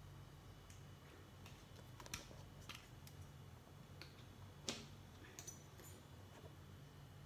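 Near silence over a low steady hum, broken by a handful of light clicks and taps from handling a plastic phone holder and a phone, the loudest about two-thirds of the way through.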